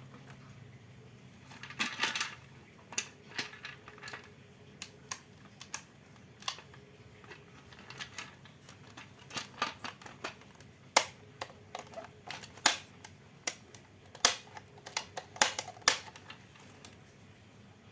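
Irregular sharp clicks and light knocks of small hard parts being handled and fitted, as in work on an electric fan motor.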